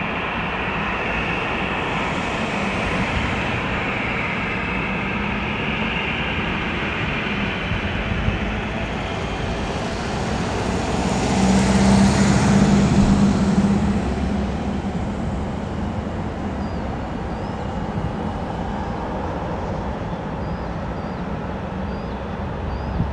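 Jet engines of an Airbus A320-family airliner landing and rolling out along the runway: a steady rushing sound that swells to its loudest, with a low hum, about eleven to fourteen seconds in as the plane passes closest, then eases.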